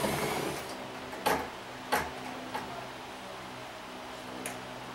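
Corded electric drill driving a screw into a wooden tabletop, spinning down within the first half-second. It is followed by a few sharp clicks and knocks, the loudest two about a second in and about two seconds in, with a fainter one near the end.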